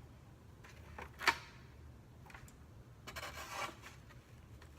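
Handling noises: one sharp knock about a second in, then soft rubbing and scraping about three seconds in.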